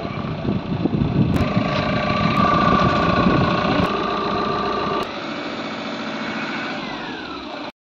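Tata Intra V30 pickup's diesel engine idling, with a thin steady whine over the rumble for a few seconds. The sound drops a little about five seconds in and cuts off abruptly near the end.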